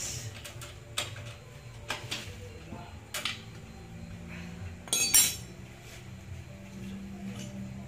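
Metal hand tools clinking and tapping against motorcycle engine parts at the open side casing: a few separate clinks, then a louder rattle of metal about five seconds in.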